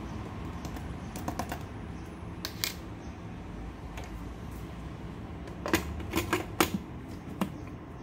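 Scattered light clicks and taps of handling at a plastic blender jar, with a louder cluster about six to seven seconds in, over a faint steady hum.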